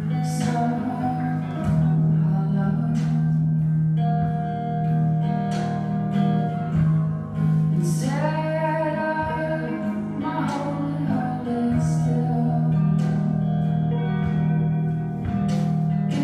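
Recorded song: a voice singing over guitar, above a steady low sustained bass note.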